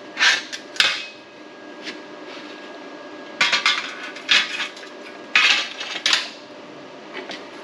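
Steel kit pieces being handled, clinking and clanking against metal in short, separate knocks: two in the first second, then clusters about three and a half, four and a half, and five and a half to six seconds in.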